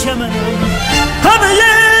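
Persian patriotic song: a voice singing in Persian over instrumental backing, with a new sung phrase beginning with a rising slide a little past halfway through.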